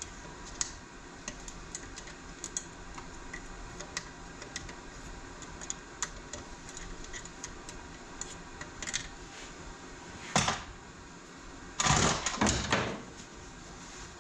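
Hand tools and metal transmission parts clicking and clinking during a bench teardown, with scattered sharp ticks. A louder clatter comes about ten seconds in, and a longer burst of clattering follows about two seconds later.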